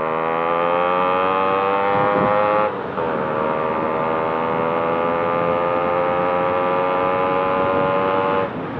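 Yamaha RX two-stroke motorcycle engine pulling under throttle on the move. The exhaust note climbs in pitch, breaks briefly at a gear change about three seconds in, then holds and rises slowly until another short break near the end.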